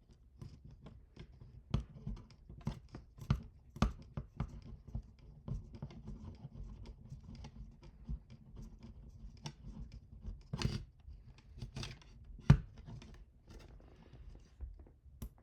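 Irregular small clicks, knocks and scraping of hard parts and tools being handled during mechanical assembly, with a sharper knock about three quarters of the way through.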